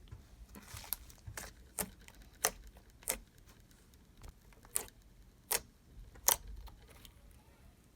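Thick glossy slime with clay mixed in being pressed and stretched by hand, giving irregular sharp clicks and pops, roughly one every half second to second.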